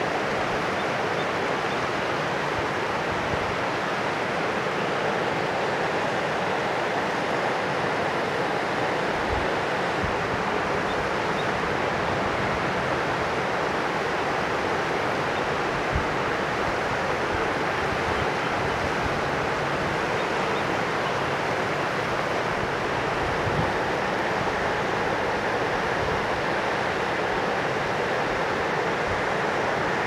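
River water rushing steadily, with a few brief low thumps.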